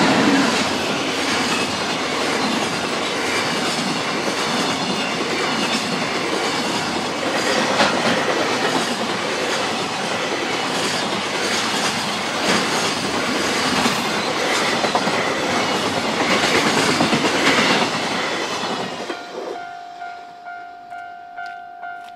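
Container wagons of a freight train rolling past: a steady rumble of wheels on rail with a clickety-clack over the rail joints. Near the end the rumble fades away as the last wagon passes, leaving a ringing tone that pulses about once every 0.7 seconds.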